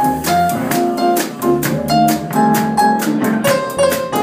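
Live jazz from a small combo: a Roland XP-80 keyboard playing melody and chords over walking upright bass, with a drum kit keeping a steady cymbal beat.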